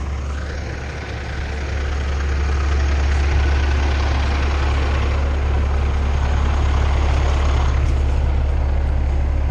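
Diesel engine of an International 4900 bucket truck running under load as it is pulled and driven out of deep mud, a steady low rumble that grows louder about two seconds in and then holds.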